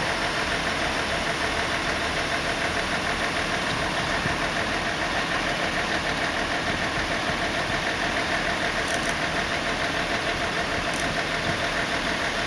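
Engine of construction machinery running steadily at idle, with an even throb, while a crane lift is under way.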